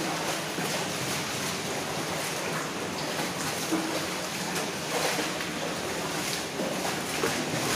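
Wading through shallow water in a corrugated steel culvert: a steady rush and slosh of water, with a splash at each stride.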